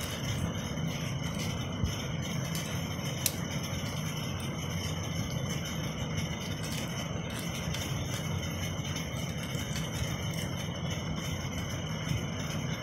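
Plastic wrapping crinkling and rustling as it is handled and pulled off a gooseneck phone holder, with irregular small clicks and one sharp click about three seconds in. Under it runs a steady low hum.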